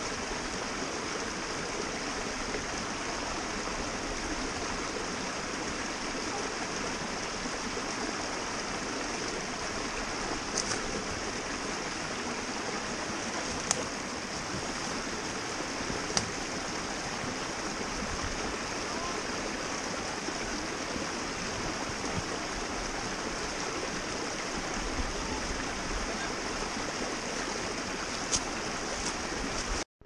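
Shallow stream rushing steadily over rocks close to the microphone, with a few sharp clicks.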